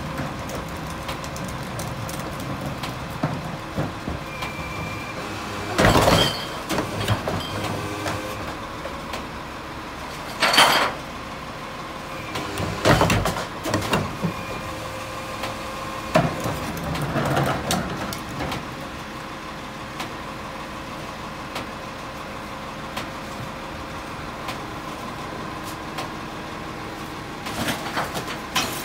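Heil rear-loader garbage truck's diesel engine idling steadily, broken by several loud bangs and clatters as a plastic wheeled cart is lifted and emptied by the rear cart tipper and loose cardboard is thrown into the hopper.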